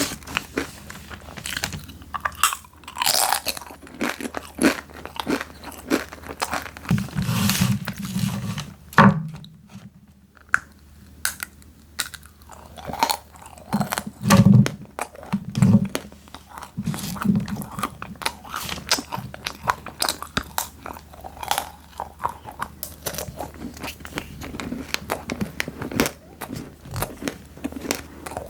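Close-miked crunching and chewing of crisp snacks: a dense run of sharp, crackly bites and chews, with a quieter pause about ten seconds in.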